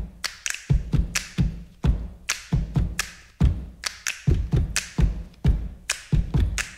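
Background music carried by a bare drum beat: deep kick hits alternating with sharp, bright snare-like hits, several a second.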